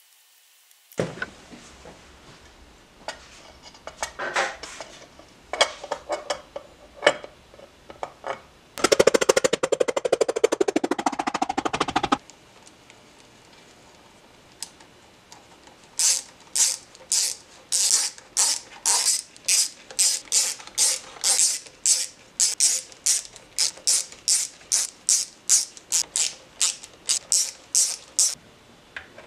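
Hand ratcheting screwdriver clicking as it drives the cam-cover screws on a Harley-Davidson Panhead engine, a steady train of sharp clicks at about three a second through the second half. Earlier come scattered clicks and knocks, then a dense rattling burst lasting about three seconds.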